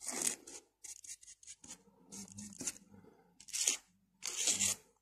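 Metal teaspoon scraping and raking through a pile of instant coffee-mix powder in several short, scratchy strokes, the loudest two near the end.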